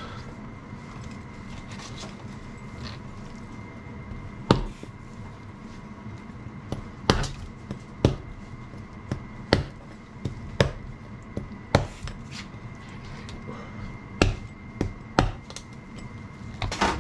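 Blade chopping down onto a kitchen cutting board while a softshell turtle is butchered. About a dozen sharp, irregular strikes start a few seconds in.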